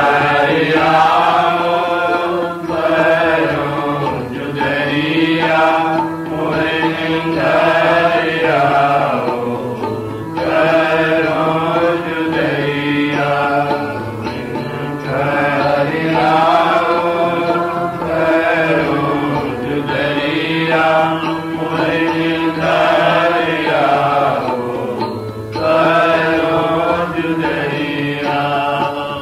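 A devotional hymn, a singer's voice rising and falling in phrases of a few seconds each, over a steady drone and instrumental accompaniment.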